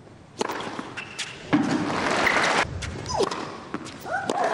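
Tennis racket striking the ball on a serve with a sharp pop, a second hit about a second later, then the crowd breaking into cheers and applause for about a second as the point is won.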